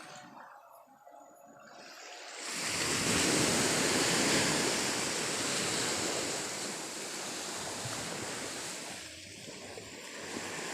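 Sea waves breaking and washing up the beach, a surge swelling up about two and a half seconds in.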